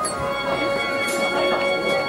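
Background music with long held notes and no clear beat.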